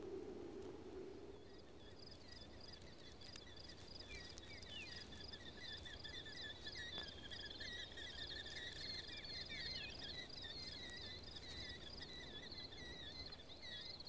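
Faint chorus of rapid, high-pitched chirping calls at two pitches, one above the other, coming in about two seconds in and running on steadily. A low rumble fades out in the first second or so.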